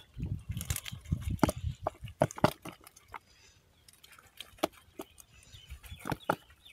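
Small live fish flapping and slapping in a plastic tub as a woven bamboo fish trap is emptied over it: irregular sharp wet slaps and taps, busiest in the first two and a half seconds, then sparser.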